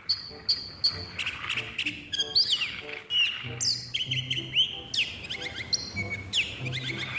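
Birds chirping and calling, many short chirps and quick falling whistles, with a low hum that comes and goes twice.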